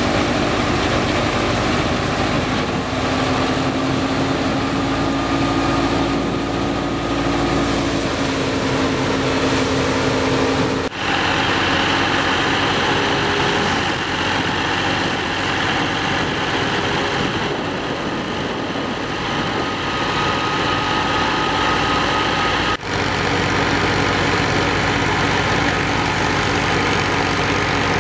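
Al Ghazi tractor's diesel engine running steadily under load, driving a shaft-powered wheat thresher that is threshing, with straw going in and chaff blowing out. The steady machine noise shifts abruptly twice, about 11 and 23 seconds in.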